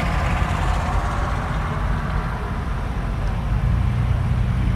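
Steady low rumble of a motor vehicle running, with an even noise over it.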